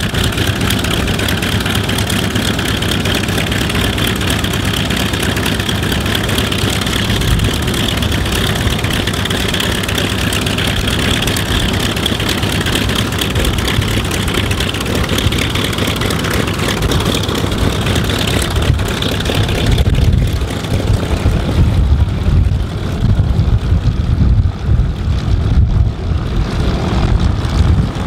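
Vought F4U-5N Corsair's Pratt & Whitney R-2800 Double Wasp radial engine running steadily on the ground. About two-thirds of the way through, the higher tones fade and a gusty low rumble takes over.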